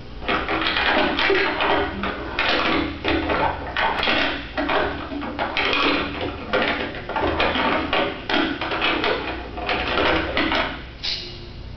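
Foley props being handled: a dense, irregular run of knocks, clatters and rustles that stops about eleven seconds in.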